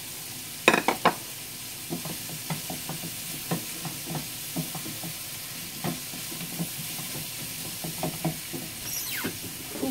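Shredded cabbage and julienned vegetables sizzling as they are stir-fried in a frying pan. A spatula knocks and scrapes against the pan again and again, with a couple of louder clatters about a second in.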